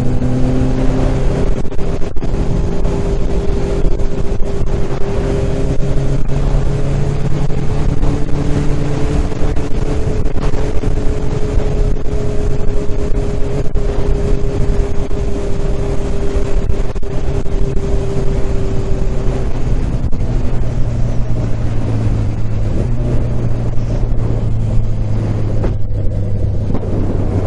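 Sport motorcycle engine running under way at fairly steady revs, its pitch shifting a little now and then, with rushing wind and road noise.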